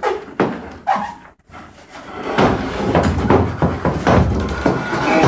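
Knocks and thuds from an arm-wrestling table as two men strain against each other in a bout, a few sharp knocks in the first second, then a denser stretch of knocking and rattling from about two seconds in.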